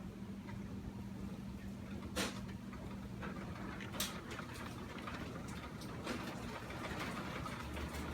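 Steady rain hiss with two sharp taps of dripping water, about two and four seconds in, over a low steady hum.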